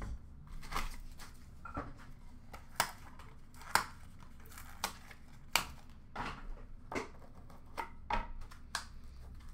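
Small white cardboard card boxes and plastic card holders being handled: a run of sharp clicks and taps, a few louder than the rest, with light cardboard rustling as a box lid is lifted off.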